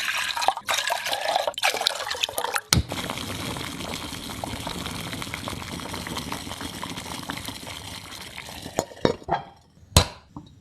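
Liquid sounds in a cooking pan: a steady rushing hiss that slowly fades, with clinks of utensils at the start and a sharp knock near the end.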